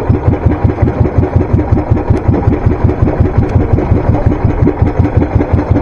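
Small fishing boat's engine running at low speed, with an even beat of about five pulses a second.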